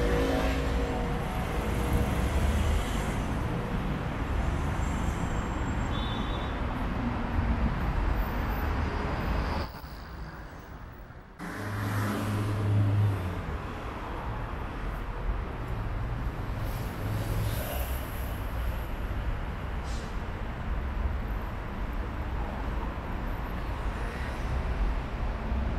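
City road traffic: cars running and passing, a steady hum of engines and tyres. It drops away for about two seconds less than halfway through, then comes back with a stronger low engine hum.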